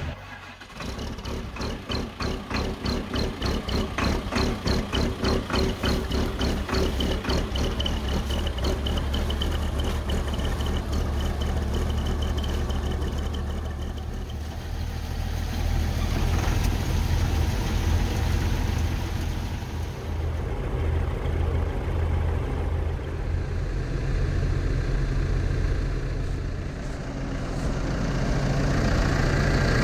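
A Valmet forwarder's diesel engine starting in the cold: it pulses unevenly for the first dozen seconds, then settles into a steady idle, and grows louder near the end.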